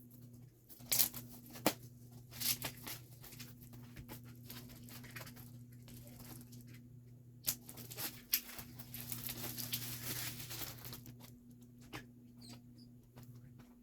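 Album packaging being unwrapped by hand: plastic wrap crinkling and tearing, with irregular sharp clicks and taps, the loudest near the start and again from about eight to eleven seconds in. A steady low electrical hum runs underneath.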